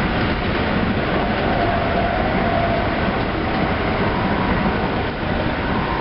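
Tsukuba Express electric commuter train running along the line, heard from inside the front cab: a steady, unbroken rumble of wheels on rail and running gear.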